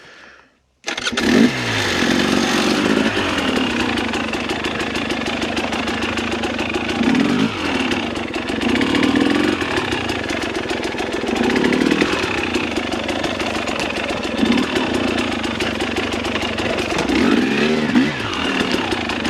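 Dirt bike engine coming in suddenly after a brief silence, then running and being revved repeatedly, with the pitch rising several times.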